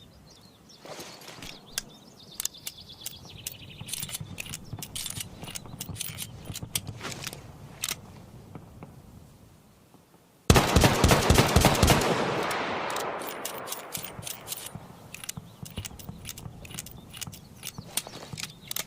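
Colt Single Action Army revolver: a run of sharp clicks, then about ten seconds in a single very loud shot whose echo dies away over three to four seconds, followed by a few more clicks.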